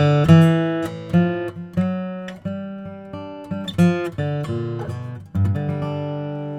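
Martin HD-28 dreadnought acoustic guitar, with a Sitka spruce top and rosewood back and sides, played unaccompanied in a quick passage of picked notes and chords. About five seconds in it lands on a chord that is left to ring and slowly die away.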